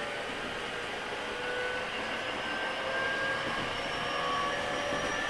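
Inside a JR 205 series 5000-subseries electric train running: steady rumble of wheels on rail under the whine of its Toyo IGBT VVVF inverter and traction motors, several faint tones drifting slightly in pitch, growing a little louder partway through.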